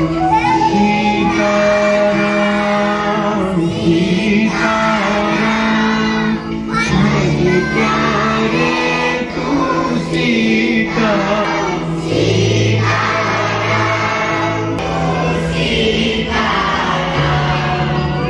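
Devotional song sung by a group of voices over steady, held instrumental notes.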